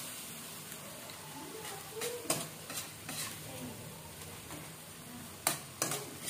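Burong isda (fermented rice and fish) with tomatoes sizzling in a metal wok while a spatula stirs and scrapes it, with a few sharp clicks of the spatula against the pan.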